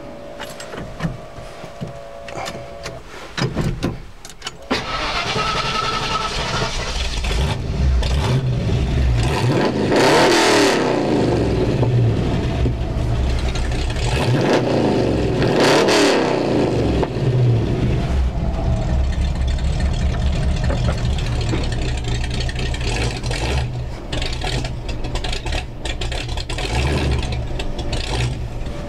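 Ford Bronco's 302 V8 through a true dual glasspack exhaust, heard from inside the cab. It runs quietly at first, picks up about five seconds in, is revved twice, each rev rising and falling, then settles back to a steady run.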